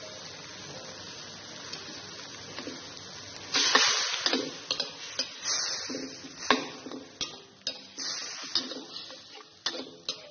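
A metal spatula stirring a wet tofu, shrimp and ground-chicken mixture in a metal wok. About three and a half seconds in there is a loud scrape, followed by a run of clinks and scrapes of metal on metal. Before the stirring starts there is only a faint steady sizzle from the wok.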